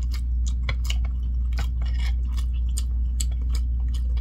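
Person chewing tteokbokki with wet mouth clicks, about three a second, over a steady low hum.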